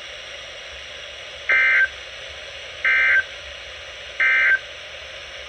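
Emergency Alert System end-of-message data tones: three short, identical buzzy bursts about 1.4 s apart, signalling the end of the alert, over a steady hiss of broadcast background noise.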